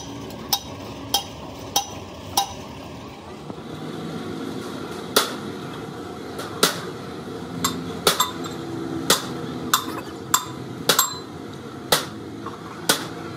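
A hammer striking metal in sharp, ringing taps: four quick even blows, a pause of a couple of seconds, then more irregular strikes about once a second.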